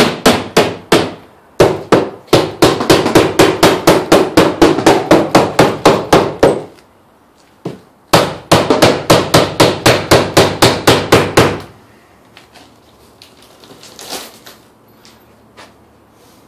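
A hammer striking a wooden crate in fast runs of blows, about five a second, stopping briefly twice. After about twelve seconds there are only faint scrapes and a few light knocks.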